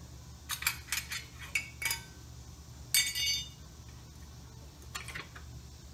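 Metal hand tools and fittings clinking during work under a car: a quick run of light metallic clicks, then a louder ringing clink about three seconds in, and a couple more clicks near the end.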